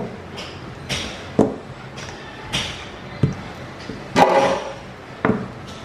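Rolling pin working bread dough on a silicone baking mat: a run of back-and-forth swishing strokes, with about five light knocks as the pin comes down. The loudest and longest stroke falls a little after four seconds.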